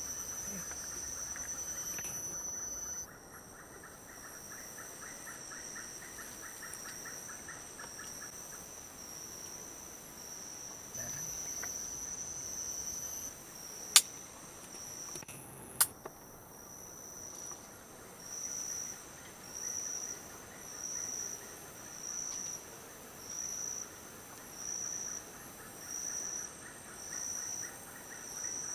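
Forest insects shrilling with a steady high-pitched tone that, in the second half, turns into regular pulses about once a second. A lower, rapid trill runs through the first third, and two sharp clicks sound about halfway through.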